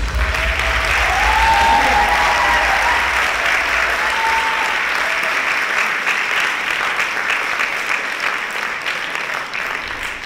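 Audience applauding at the end of a dance performance, with a few short voiced cheers in the first seconds; the clapping slowly thins out toward the end.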